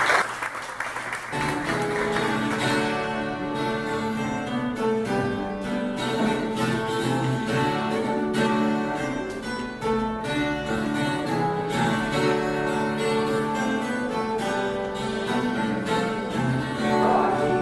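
Instrumental music with plucked guitar and bowed strings, steady sustained chords under the plucked notes, starting about a second in.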